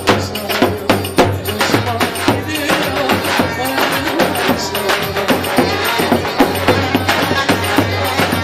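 Live Turkish folk dance music: a davul drum beats a steady rhythm under a wavering melody line.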